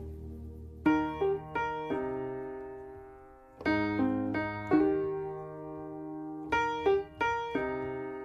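Piano playing three short phrases of a few notes each, every note struck and left to ring and fade.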